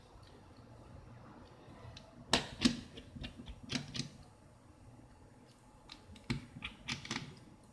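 Sharp clicks and taps of small tools on the plastic casing and parts of a Samsung Galaxy S2 as it is opened, in two clusters, the loudest about two and a half seconds in.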